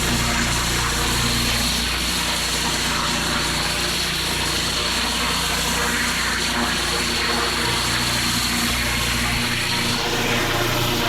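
Pressure washer running: a steady motor hum under the hiss of the water jet spraying on paving, the hum changing pitch abruptly a few times.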